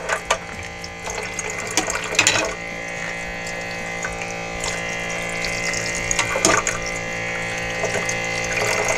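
Water running from the electric pump faucet of a Zerosum-M portable camping sink over utensils in its stainless basin, the small pump motor humming steadily underneath. A few utensils knock against the basin along the way.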